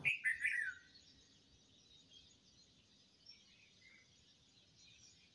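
Birds chirping: a quick run of falling chirps in the first second, then only faint, scattered calls over a quiet background.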